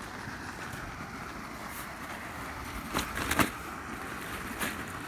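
Steady outdoor background hiss, with a few short rustles and knocks about three seconds in as a padded carp sling holding a fish is set down and opened on the grass.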